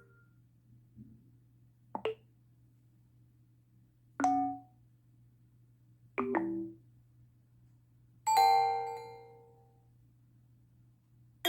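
Cell phone notification tones played one after another: four short electronic chimes about two seconds apart, the last one brighter and bell-like, ringing out for about a second.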